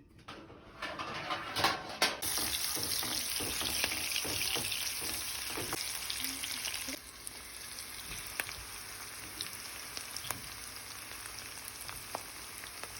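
Onions frying in hot oil in a pot, with a spoon stirring and knocking against it now and then. The sizzle starts about two seconds in and gets quieter after about seven seconds.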